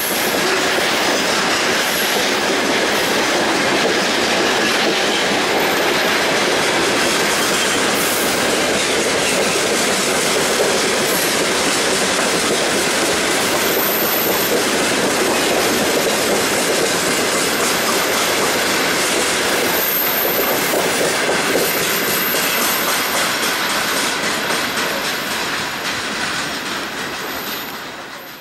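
Freight wagons (covered hoppers and open gondolas) of a freight train rolling past, a steady loud rattle and clatter of wheels over the rails, with thin high-pitched squeals now and then. It fades out near the end.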